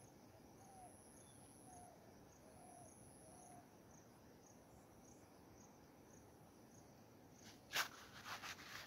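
Faint insects chirring high-pitched in on-off spells of about a second, with a short low animal call repeated four times about a second apart in the first half. Near the end, rustling and crunching steps in dry grass.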